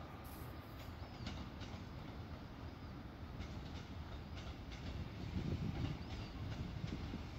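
Diesel multiple unit approaching slowly over the station pointwork: a low rumble of engine and wheels that grows louder over the last couple of seconds, with wheels knocking over the rail joints and points.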